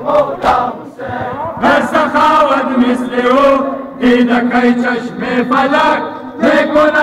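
Group of men chanting a Hazaragi noha, a Shia mourning lament, together in long held melodic lines. A few sharp slaps of hands on bare chests (matam) cut through, near the start and again about a second and a half in.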